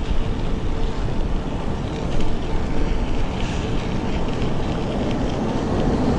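Wind buffeting the microphone of a camera on a moving bicycle: a steady, rough rush of noise.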